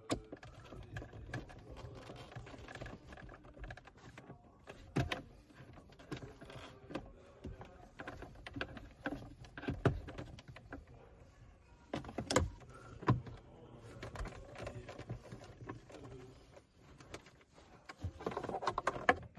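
Scattered clicks, knocks and rustling of hands working a car's plastic glove box into place and driving its screws, with a few sharper knocks partway through and a busier cluster of small noises near the end.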